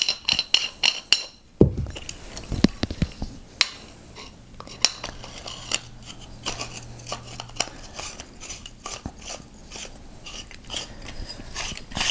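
Metal lightsaber coupler being screwed by hand onto a hilt's threads: an irregular run of small metallic clicks and scrapes as the parts turn against each other.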